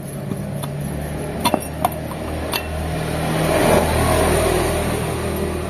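A few sharp metal clinks in the first half as a worn Mazda Lantis inner CV joint is handled and turned by hand. Under them runs a steady motor-vehicle engine hum that grows louder through the middle, then eases.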